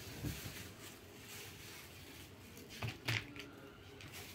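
Faint room tone with two brief soft knocks close together about three seconds in.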